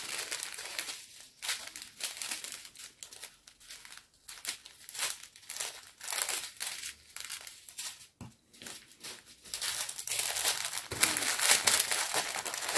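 Plastic packaging and small plastic bags of diamond painting drills crinkling as they are handled, in irregular bursts that grow busier and louder for the last few seconds.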